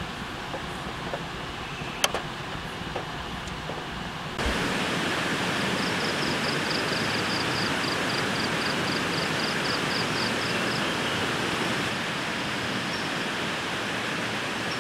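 Steady rain hiss, softer with a few sharp clicks at first, then louder after a cut about four seconds in. A faint high chirping pulses about four times a second through the middle.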